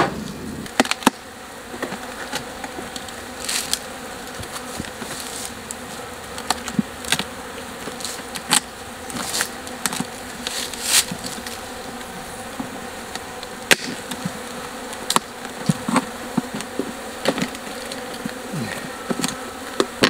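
A colony of African honeybees (Apis mellifera scutellata) buzzing steadily at an open hive, with scattered sharp knocks and clicks as the wooden hive boxes are worked.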